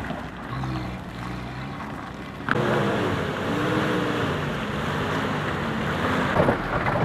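Off-road SUV engine under load in mud, revving up and down again and again as the pitch rises and falls. The sound steps up suddenly in loudness about two and a half seconds in.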